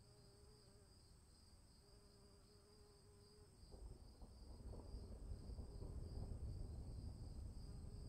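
Insects trill steadily in a fast pulsing chirr, and a faint buzz comes and goes in the first half. About halfway through, a low rumble of distant thunder begins to build and slowly grows louder.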